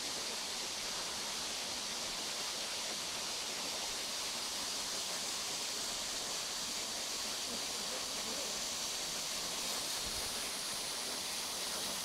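Waterfall's steady rush of falling water, a tall thin fall over a cliff face, an even hiss without changes.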